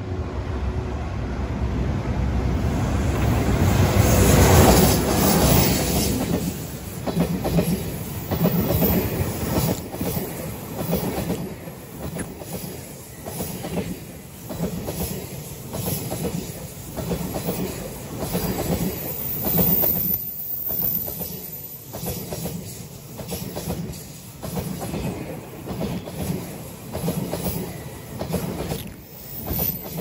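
Freight train headed by an EH200 electric locomotive running past close by. The noise builds to its loudest about four seconds in. Then a long line of container wagons clatters by in a steady clickety-clack of wheels over the rail joints.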